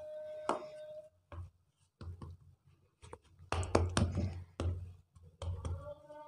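Hands patting and pressing a ball of chilled biscuit dough flat on a floured board. A few soft thuds and rubbing sounds come, loudest a little past halfway.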